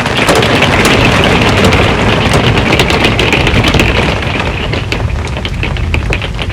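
Heavy rain drumming and pattering on an RV's metal roof, with a thunder rumble that swells in at the start, holds for about four seconds and then fades under the rain.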